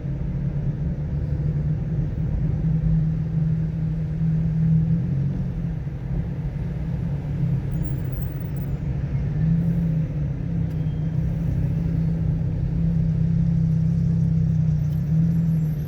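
Car being driven on a wet road: a steady low engine drone over constant tyre and road noise.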